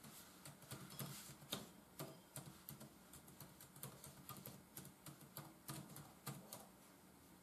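Faint, irregular key clicks of typing on an Acer Chromebook C720's keyboard.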